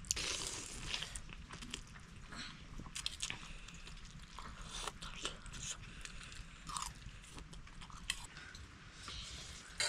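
Someone eating close by: irregular crunchy bites and chewing.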